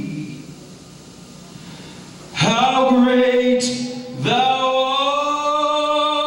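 A man singing unaccompanied into a microphone: a quieter gap of a couple of seconds, then a long held note, and a second long held note starting about four seconds in.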